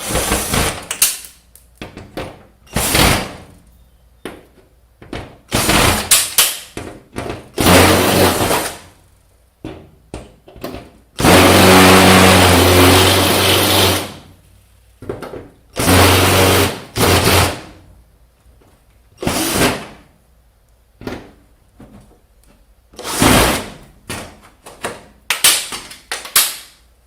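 Cordless drill driver running in short bursts in reverse, backing screws out of metal awnings. Between the runs there are metal clanks and rattles, and the longest run lasts about three seconds near the middle.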